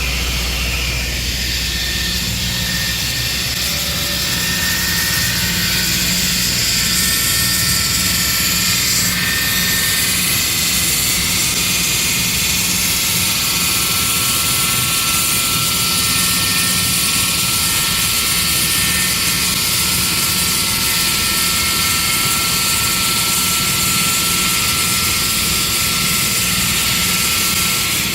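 Diamond drilling equipment cutting into rock ledge: a loud, steady mechanical drone with a strong hiss and a steady high whine, unchanging throughout.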